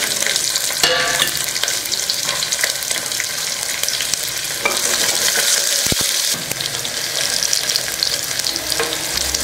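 Small onions frying in hot oil with mustard seeds, cumin and curry leaves in an aluminium pressure cooker, sizzling steadily with fine crackles.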